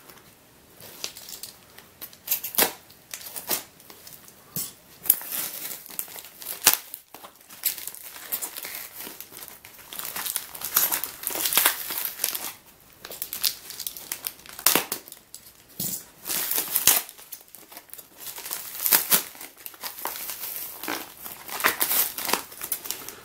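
Yellow plastic mailing bag crinkling and tearing as it is peeled off a polystyrene block, a run of irregular sharp crackles.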